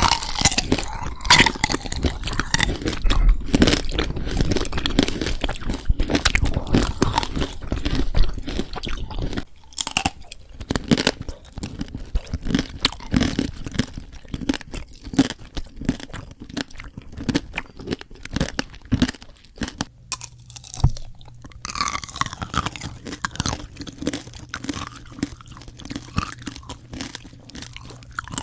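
Close-miked eating sounds: a person biting and chewing crunchy food, with dense, irregular crunches. The sound changes abruptly about a third of the way in and again about two-thirds in, as one clip gives way to the next.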